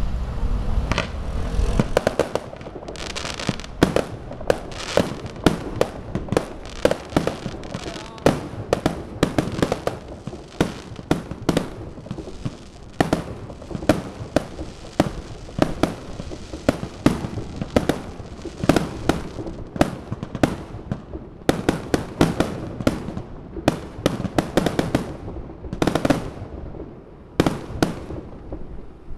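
Fireworks going off in quick succession: sharp bangs about two or three times a second, with a short lull near the end before they stop.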